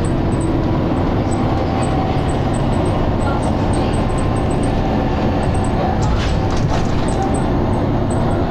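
Dennis Arrow double-decker bus heard from inside while under way: a loud, steady low rumble of engine and running gear with a faint steady whine, and a few short rattles about six to seven seconds in.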